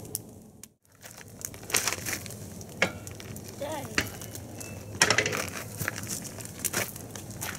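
Crinkling and crackling with many sharp clicks, from a campfire burning while things are handled over the fire pit.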